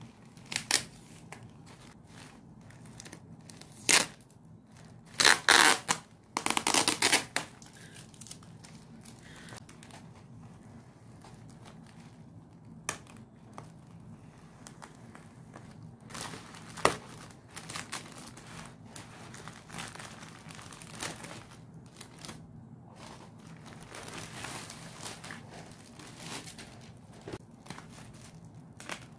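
Plastic courier mailer bag crinkling and tearing as it is handled and cut open. The loudest bursts come in the first eight seconds, followed by softer plastic rustling with a few sharp clicks.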